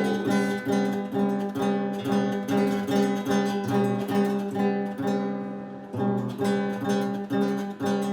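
Acoustic guitar strummed in a steady rhythm, the same chord pattern repeating about two to three strums a second, with a short lull near six seconds.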